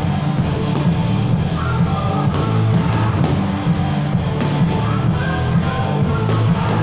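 Rock music with guitar, playing steadily.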